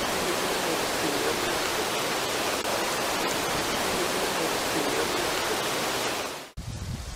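Loud steady hiss of a digitally boosted night field recording, with faint, indistinct murmuring like distant unintelligible talking beneath it; the hiss cuts off suddenly near the end.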